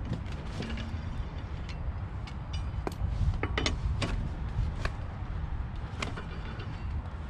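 Scattered metallic clicks, knocks and clinks of a car wheel being taken off by hand with lug wrench and lug nuts, with a brief ringing metal clank about three and a half seconds in, over a steady low rumble.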